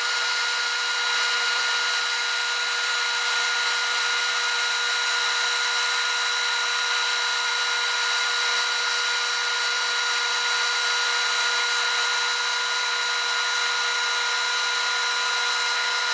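Band saw with a 6 teeth-per-inch blade slicing a thick block of acrylic plastic, running together with a dust-collection vacuum. It is a steady, even noise with a constant whine over it.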